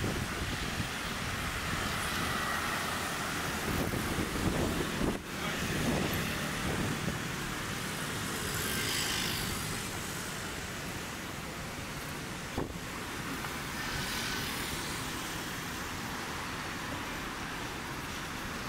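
City traffic noise: a steady wash of passing vehicles, swelling as one goes by about nine seconds in and again about fourteen seconds in, with a single sharp click just past twelve seconds.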